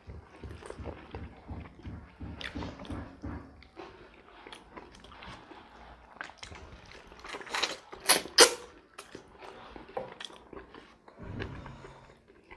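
Close-miked eating by hand: chewing with wet mouth sounds and rice being mixed with fingers, with a few sharp, loud smacking clicks about eight seconds in.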